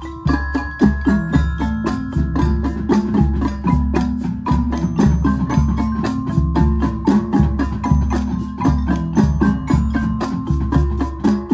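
Percussion front ensemble of marimbas and other mallet keyboards playing a fast passage of quick struck notes over a steady low bass.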